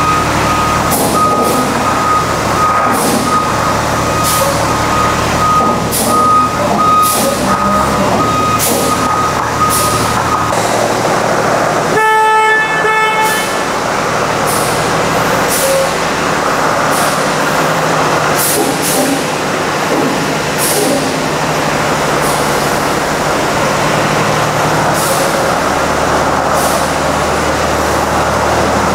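Large International WorkStar truck running while it is manoeuvred, with its reversing alarm beeping steadily for about the first ten seconds, then stopping. A short horn-like tone sounds about twelve seconds in.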